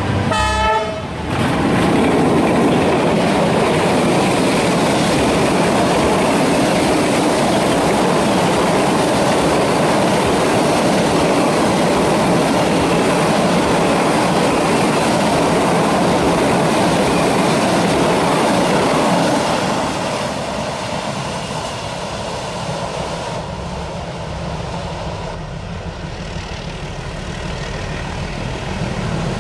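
Freight train rolling past on the rails, a steady loud noise of wheels and wagons that eases off after about twenty seconds.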